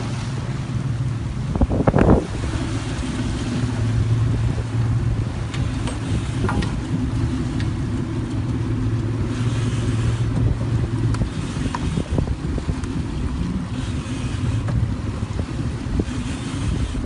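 Outboard motor of about 200 horsepower running steadily under way, a low even hum with water and wind noise rushing over it. A short loud bump about two seconds in.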